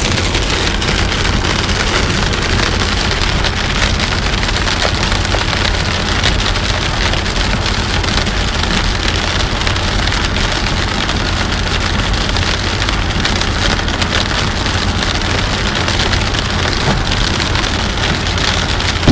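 Rain pelting a moving car's windshield and body, heard from inside the car, over a steady low rumble of the car driving on the wet road.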